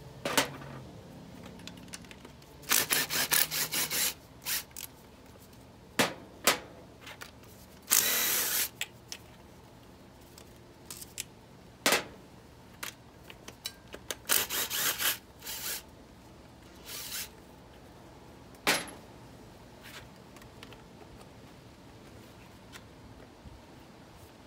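Cordless impact driver with a socket on an extension hammering in several short bursts as it backs out the 12 mm intake manifold bolts on a Suzuki four-cylinder outboard. Single sharp clicks and knocks fall between the bursts.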